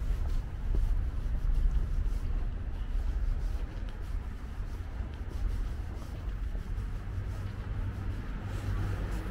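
Outdoor background: an uneven low rumble with a steady hiss above it, as picked up by a walking camera's microphone.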